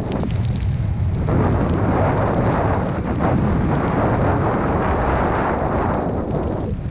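Snowboard running through deep powder: a steady rushing hiss of snow over a low rumble of wind on the camera microphone. The hiss swells a little over a second in and eases near the end.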